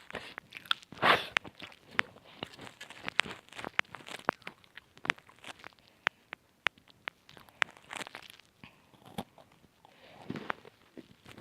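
Close-miked crunching and chewing of crisp chocolate chip cookies: a loud crunchy bite about a second in, then many small crackles, and another crunch near the end.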